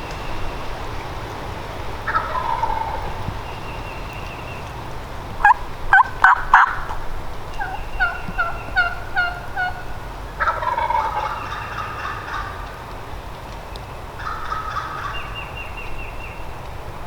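Eastern wild turkey gobbler gobbling three times: about 2 s in, about 10 s in and about 14 s in. Between the gobbles come four loud, sharp turkey calls about 6 s in, then a run of about six evenly spaced yelps.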